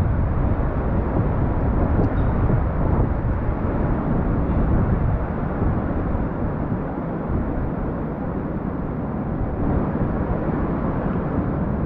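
Wind buffeting a GoPro Hero8's microphone: a steady, low rumbling noise.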